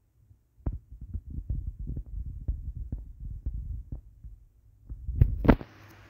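A run of irregular dull thumps and knocks, with two louder knocks about five seconds in.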